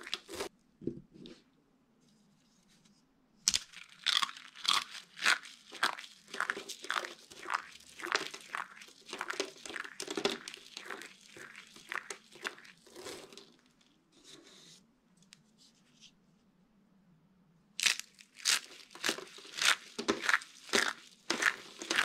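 Dry soap shavings crushed and squeezed by hand, giving dense, crisp crunches and crackles. A brief crunch at the start, then a long spell of crunching, a quiet pause of a few seconds, and more crunching near the end.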